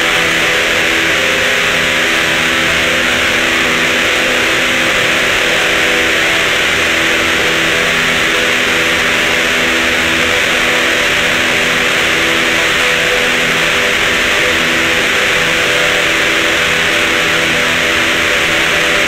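Experimental black metal recording: heavily distorted electric guitars form a dense, unbroken wall of noise, holding chords that change every few seconds.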